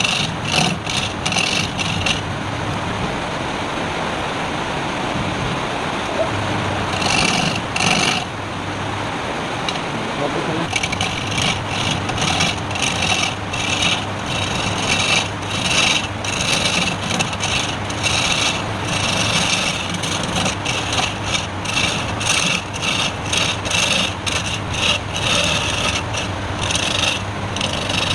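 A wood lathe running while a turning tool cuts the spinning wood in many short strokes, with pauses of a few seconds where only the lathe is heard.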